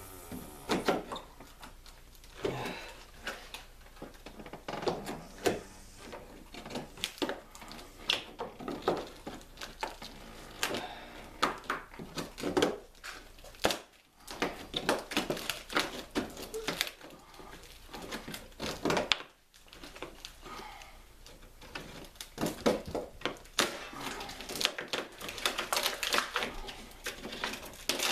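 Hand tool prying and scraping old painted canvas and trim off a wooden canoe hull: irregular clicks, taps and scrapes.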